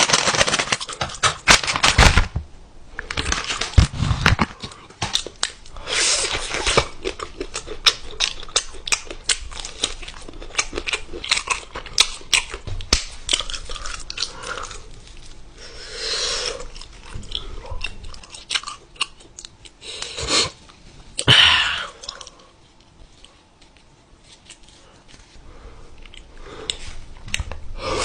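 Close-up eating sounds: a person biting and chewing food, with irregular wet clicks, smacks and crunches, louder bursts now and then and a quieter stretch near the end.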